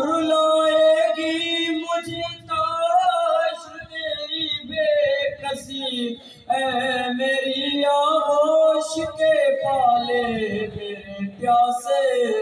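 A man singing an Urdu noha, a mourning lament addressed to Imam Husayn, solo and without instruments, in long held notes that waver and fall at the ends of phrases.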